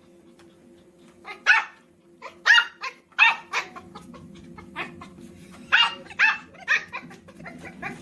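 Small puppy barking in short, sharp yips. A run of them comes from about one and a half to three and a half seconds in, and another around six seconds, over a faint steady hum.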